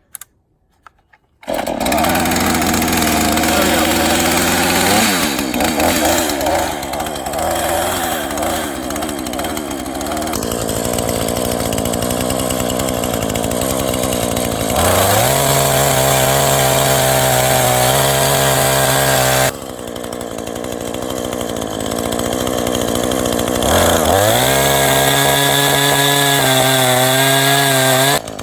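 A two-stroke chainsaw fires about a second and a half in after a primed cold start, then keeps running. It runs unevenly at first. It revs up to a steady high whine twice, near the middle and again near the end.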